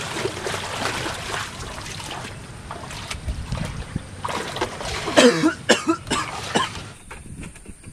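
A person coughing, a run of several loud, rough coughs in the second half, over a steady hiss of background noise.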